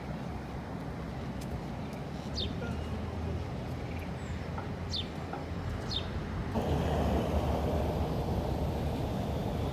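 Outdoor ambience: a steady hum of distant traffic with three or four short, high, falling bird chirps. About two-thirds of the way through, the background changes suddenly to a louder, fuller hum.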